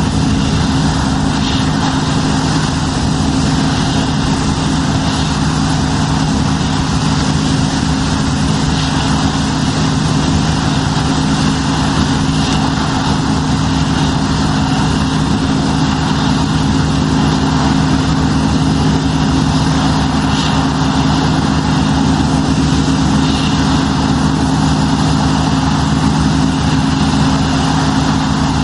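New Holland CSX7050 combine harvester running steadily with its engine and machinery at a constant hum, while the unloading auger pours grain into a trailer.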